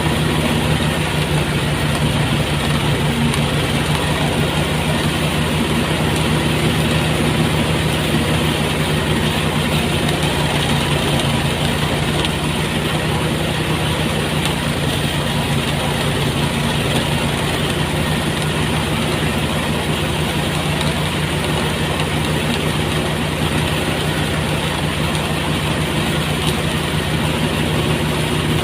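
Engine-driven rice threshing machine running steadily, its motor holding a constant low hum under an even rattle and hiss of threshing.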